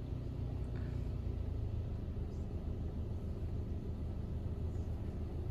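Touch-free automatic car wash running during its pre-soak pass, heard from inside the car's cabin as a steady low rumble.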